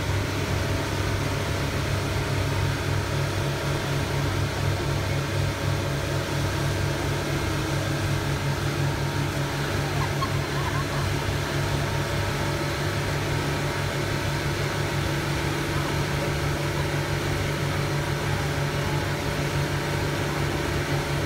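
Motorboat engine running steadily at cruising speed, a low even drone, over the rush of the churning wake and wind.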